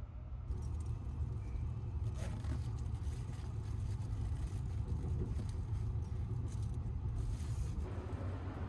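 Steady low rumble of the Sunrise Izumo sleeper train, a 285 series electric train, running along the line, heard from inside the carriage. It grows louder about half a second in.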